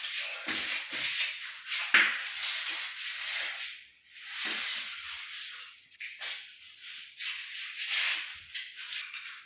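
A broom sweeping construction dust off a floor in repeated swishing strokes, roughly one a second.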